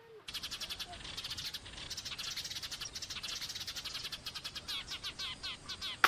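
Eurasian tree sparrows chirping, a rapid, continuous run of many short high chirps a second that starts abruptly just after the start.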